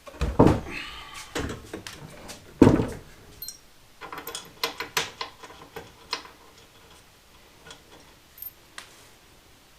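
Workshop handling knocks on a wooden workbench: two heavy thumps, then a run of lighter clicks and taps that thin out toward the end.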